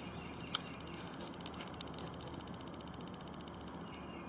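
Quiet outdoor background with a steady high insect hum. From about a second in, a fast, evenly pulsing trill runs for a few seconds, and a faint sharp click comes about half a second in.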